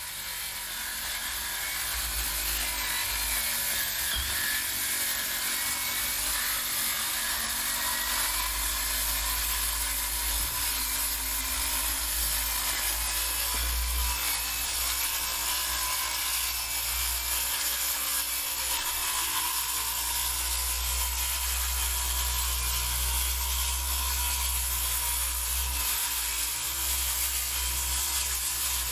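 Circular saw making a long continuous cut along the edge of OSB roof sheathing. It runs steadily, fading in over the first second or two.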